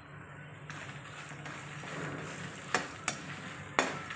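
Hot oil sizzling in a steel kadhai as a perforated metal ladle stirs a chivda tempering of peanuts, dal and coconut slices. Three sharp clinks of the ladle against the pan come near the end.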